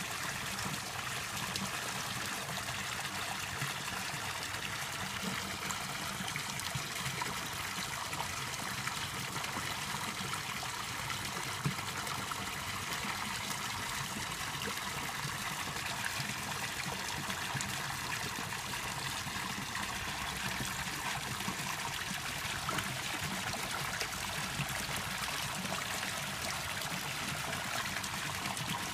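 Koi pond water trickling and running steadily.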